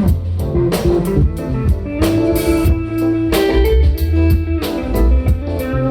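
Band music played over a sound system during a sound check: guitar over bass and a drum kit keeping a steady beat.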